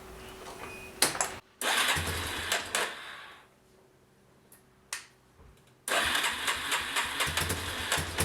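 Yamaha Warrior ATV's single-cylinder four-stroke engine being started after an oil change and new spark plug. It runs briefly from about one and a half seconds in, cuts out abruptly, then runs steadily again from about six seconds in, warming up at idle.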